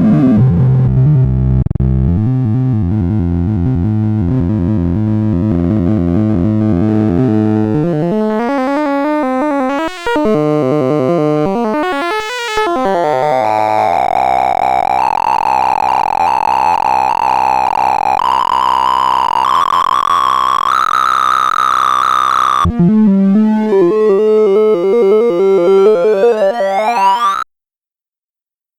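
Sorting-algorithm sonification: synthesized tones whose pitch follows the values being compared. A dense low warble gives way to swooping glides, then a series of stepped tones. From about 23 s come fast rising sweeps, which cut off suddenly near the end.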